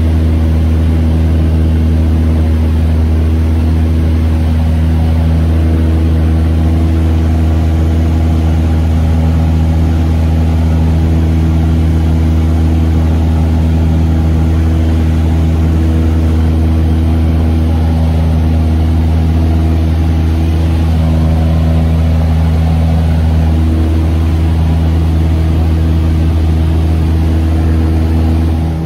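Light aircraft piston engine and propeller running steadily in level flight, heard from inside the cockpit as a loud, even low hum with a noisy rush on top.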